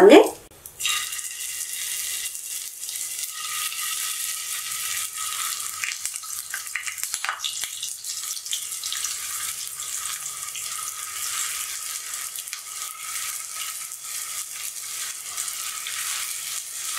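Potato-and-cornflour nuggets sizzling as they shallow-fry in hot refined oil in a frying pan: a steady crackling hiss that starts about a second in as the first pieces go into the oil and stays even as more are added.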